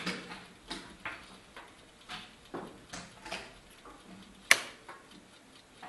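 Blitz chess being played: a quick run of sharp clicks and knocks as wooden pieces are set down on the board and the buttons of a mechanical chess clock are pressed, roughly two a second. One click about four and a half seconds in is much sharper than the rest.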